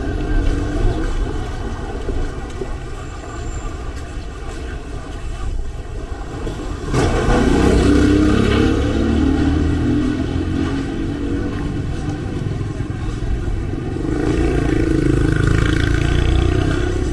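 Street traffic dominated by motor scooters riding past, their small engines rising sharply about seven seconds in and swelling again near the end.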